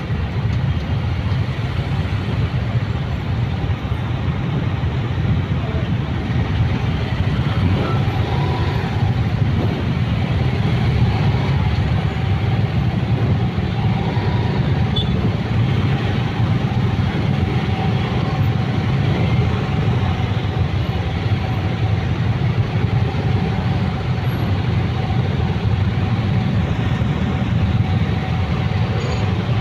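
Crawling motorcycle and car traffic: a steady low rumble of many scooter and car engines close around, with no single event standing out.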